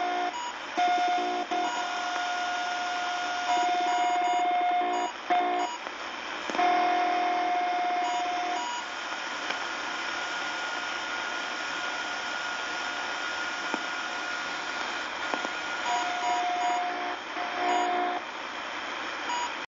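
A CB radio receiver on 27.145 MHz is playing an unidentified signal: a steady beeping tone over radio static. The tone breaks off and comes back several times. In the middle stretch there is mostly static with a faint, higher steady tone.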